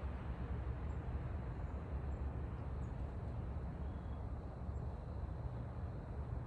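Steady low outdoor background rumble, with a few faint, brief high chirps.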